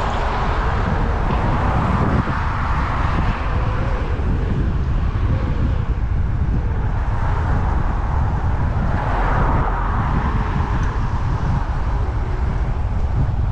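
Steady wind rush and low rumble on the microphone of a camera riding along on a Segway Ninebot Max electric kick scooter, with street traffic that swells and fades.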